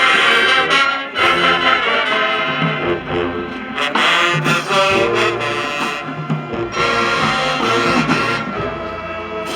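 High school marching band playing a brass-heavy piece: trumpets and trombones carrying the tune over low brass, with the chords changing every second or so.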